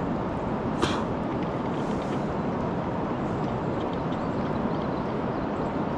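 Steady rumble of wind buffeting the microphone on an open river, with one sharp click about a second in.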